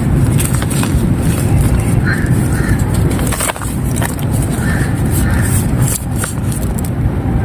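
Dry clay and fired clay-pot pieces crumbling, a dense run of small crunches and crackles over a steady low rumble.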